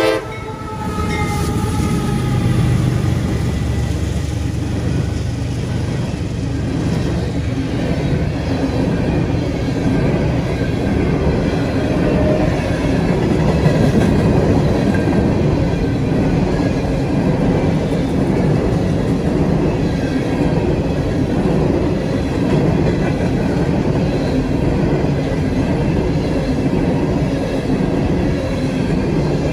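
CSX coal train passing close by. A horn blast cuts off right at the start, the diesel locomotives rumble past over the first few seconds, and then a long string of coal hopper cars rolls by with steady wheel-on-rail noise.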